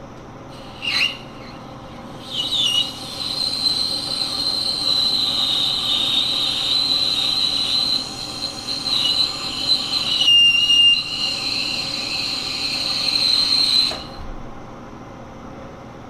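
Carbide lathe insert squealing as it cuts the steel of a GM wheel hub on a Monarch lathe, fed slowly. A short squeak about a second in, then a steady high squeal from about two seconds in that cuts off sharply near the end, over the hum of the running lathe.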